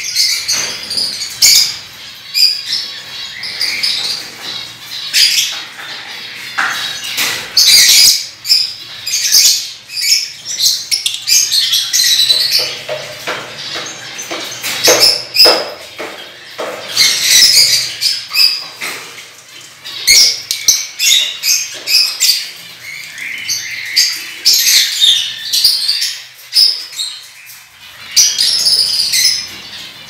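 A flock of small cage birds chirping and chattering continuously, with short squawks and occasional sharp clicks.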